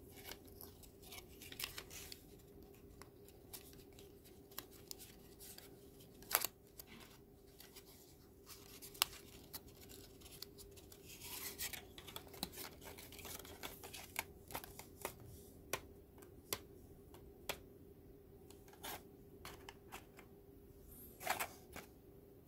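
Thin Kent card being folded, creased and slotted together by hand: scattered sharp clicks and taps of the card, with a short rustle about halfway through, over a faint steady hum.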